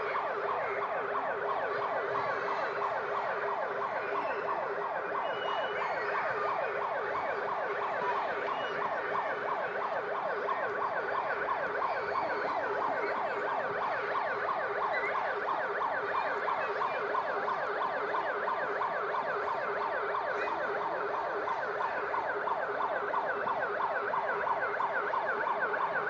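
School seismic alarm siren sounding without a break, a fast, repeating warble, warning that an earthquake is under way.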